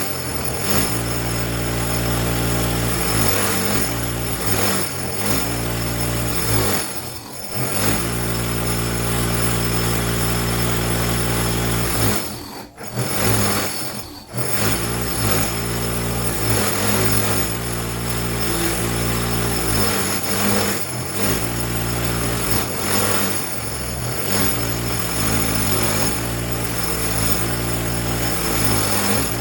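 Electric bench-wheel motor running a wire wheel against a large cast pipe wrench, its hum dipping in pitch and recovering again and again as the wrench is pressed into the wheel, with brief let-offs about 7 seconds in and again a little after 12 seconds.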